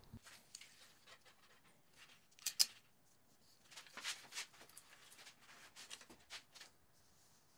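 Faint rustling and light clicks of hands handling a self-adhesive tape measure strip and pressing it down along a table saw fence rail, with one sharper tick a little over two and a half seconds in and a few more light scuffs about four seconds in.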